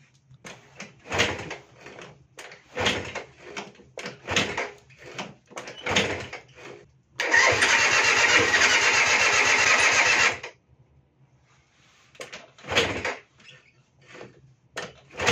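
Junak 806 50cc two-stroke scooter engine being cranked over without catching. First comes a series of short cranking strokes about once a second, then about three seconds of continuous cranking, then a couple more strokes near the end.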